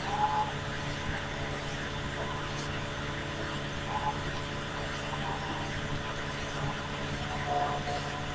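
Steady background hum and hiss, with a few faint, brief tones now and then.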